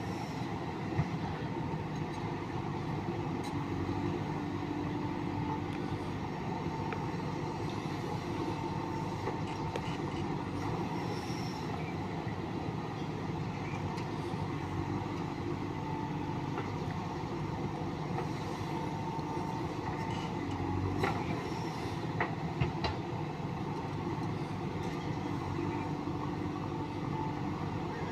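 JCB 3DX backhoe loader's diesel engine running steadily while working, with a whine that rises and fades several times and a few short knocks.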